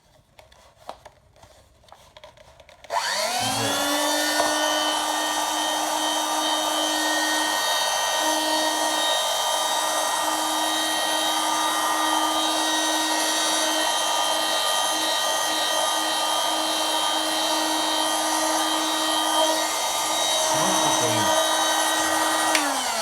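Soviet Veterok-3 vacuum cleaner brush: after a few handling clicks its electric motor is switched on about three seconds in. It spins up with a rising whine, runs steadily, and is switched off near the end, its whine falling as it winds down.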